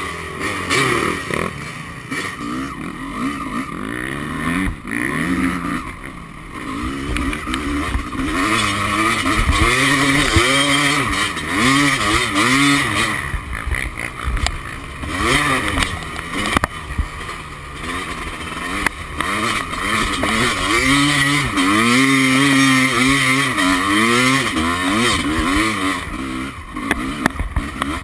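250cc two-stroke motocross bike engine being ridden hard over sand, revving up and down again and again as the throttle opens and closes and gears change.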